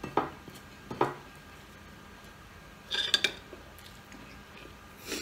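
Metal cutlery clinking against a ceramic plate: a quick cluster of sharp clinks about three seconds in and another near the end, with two duller knocks in the first second.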